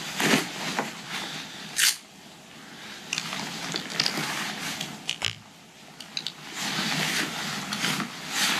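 Rustling of a rain jacket and gear being handled, with a few sharp clicks and scrapes in between.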